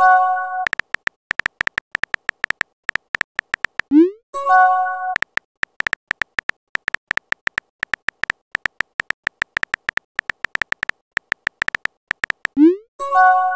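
Texting-app sound effects: rapid keyboard tapping clicks, and a short rising pop followed by a multi-tone chime each time a message is sent, three times (at the start, about four and a half seconds in, and near the end).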